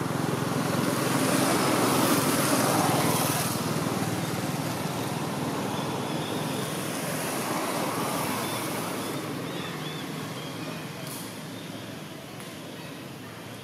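Passing motor-vehicle traffic: a steady engine and road rumble that swells over the first few seconds and again around the middle, then slowly fades.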